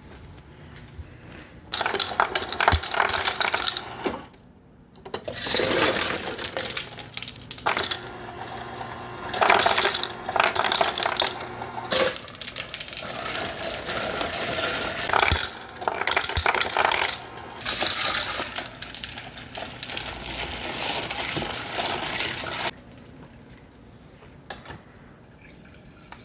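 Busy clinking and clattering of small hard objects, many sharp strokes in quick succession, starting about two seconds in, briefly pausing, then running on until it stops a few seconds before the end.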